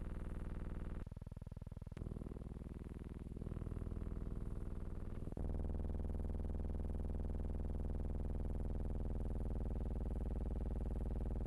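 A steady, buzzy drone with many overtones. Its tone changes abruptly about a second, two seconds, three and a half seconds and five and a half seconds in, then holds steady.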